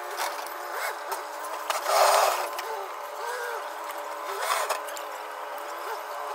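Clicks and scrapes of a screwdriver and hose clamp as a coolant hose is clamped in an engine bay, with one louder scrape about two seconds in. A steady machine drone runs underneath.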